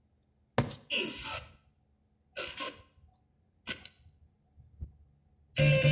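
Pioneer DEH-1450B car stereo tuning through the FM band: four or five brief snatches of station sound and hiss, each cut off by silent muting, until it settles on a station playing guitar music near the end.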